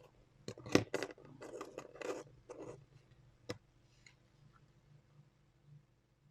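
Small clicks and scraping from handling a soldering iron and a mouse circuit board while solder is added to the switch pin holes. There are a few sharp clicks in the first second, scratchy scraping for about a second, and one sharp click at about three and a half seconds, then it goes faint.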